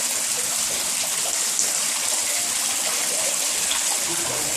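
Water pouring over an artificial rock waterfall, a steady, even rush of falling water.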